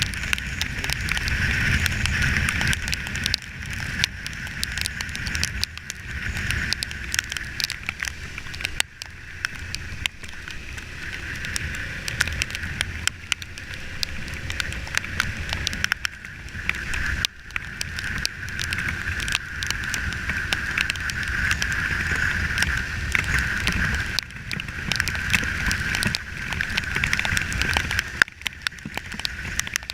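Riding noise on a Kawasaki Ninja 300 motorcycle: a steady rush of wind over the camera with a low rumble underneath, broken by many sharp ticks and crackles.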